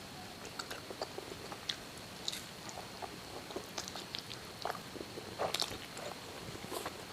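Close-miked eating sounds of siomay and stuffed tofu being bitten and chewed, a string of irregular short wet mouth clicks.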